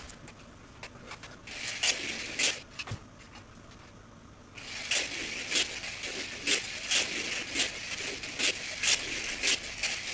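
1/32-scale slot car running on a wooden routed track: a small electric motor whirring and its guide rattling in the slot. A short run comes about 2 s in, then a steady run from about halfway, swelling in level about twice a second.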